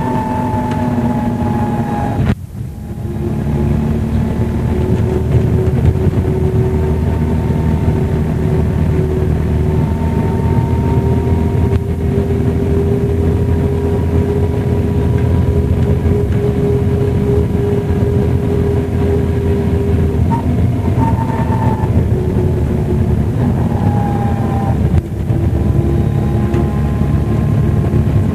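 MCW Metrobus's Cummins diesel engine pulling steadily on the road, heard on board, with a steady whine over the engine note. The sound drops briefly about two seconds in and again near the end, typical of gear changes.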